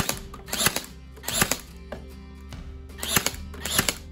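Bauer 20V cordless 18-gauge brad nailer firing in quick succession. Each shot is a sharp cluster of clacks, five shots in all, about 0.7 s apart with a short pause after the third, over background music.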